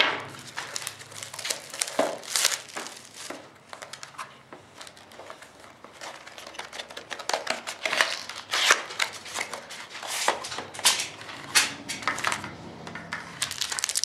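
Plastic shrink-wrap being peeled off a sealed trading-card box and crumpled, with a string of crinkles, crackles and short tearing sounds, as the box is opened and handled.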